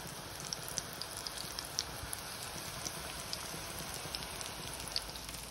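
Minced-meat kebab patties shallow-frying in oil in a pan over medium heat: a steady sizzle with scattered small pops and crackles.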